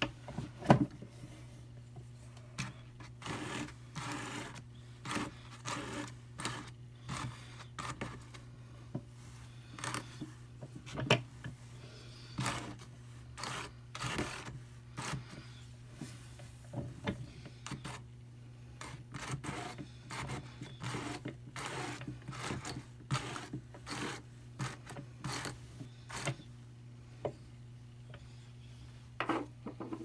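Hand-cranked Brother drum carder with fine carding cloth: wool fibre dragging off the wire teeth in irregular rasping strokes, roughly one a second, as the blended batt is peeled off the big drum. A steady low hum sits underneath.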